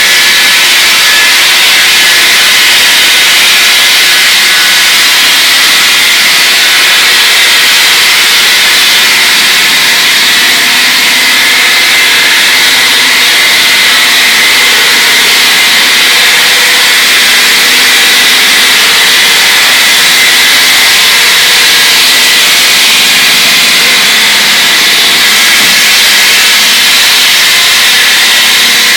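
A power tool running steadily without a break: a loud, even hiss with a faint whine, no pauses or strokes.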